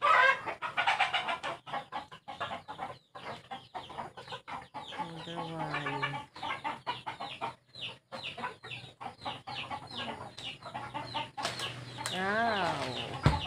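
Chickens clucking, many short calls in quick succession, with a longer call that rises and falls near the end.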